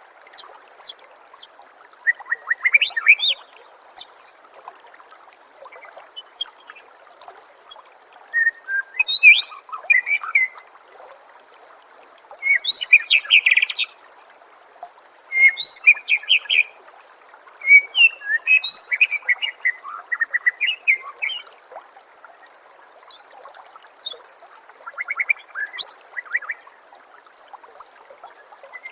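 White-rumped shama (murai batu) singing phrases of varied whistles and chirps every few seconds, over a steady trickle of water.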